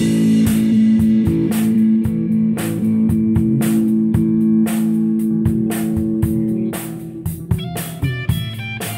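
Live rock band instrumental: an electric guitar holds a chord over steady drum hits, then about seven seconds in the chord stops and the guitar picks a quieter run of single high notes.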